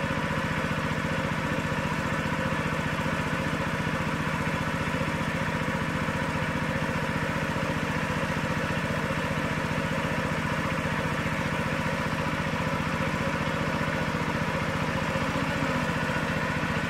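Small engine running steadily at an unchanging speed, typical of the engine driving a pump that drains a fish pond.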